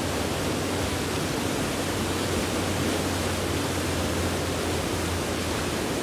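Fast, high river running over whitewater rapids: a steady rush of water with a low rumble underneath that fades near the end.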